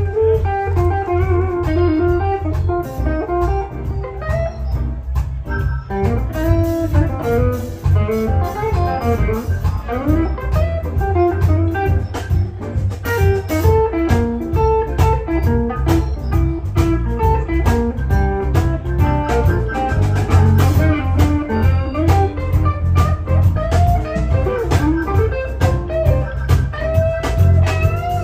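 Live blues band playing: electric guitar lead lines with bent notes over bass and drums.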